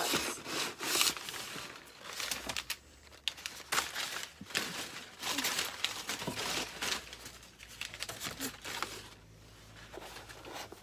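Packing paper crinkling and rustling in irregular crackling bursts as it is rummaged through in a cardboard box, busiest over the first seven seconds and thinning out near the end.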